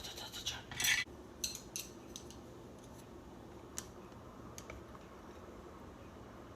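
Faint clinks and scrapes of kitchen utensils and dishes, several in the first two seconds, then a few isolated clicks.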